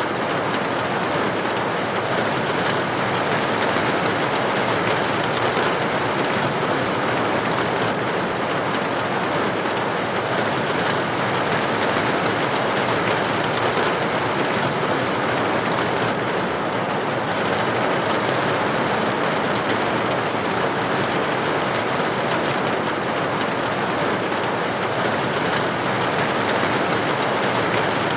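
Steady rain falling and pattering on a window pane, an even, continuous rushing hiss.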